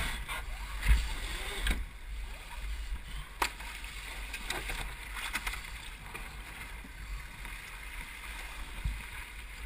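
Water rushing along the hull of an International Canoe sailing dinghy under way, over a steady low rumble of wind on the microphone. A few sharp knocks come in the first three and a half seconds.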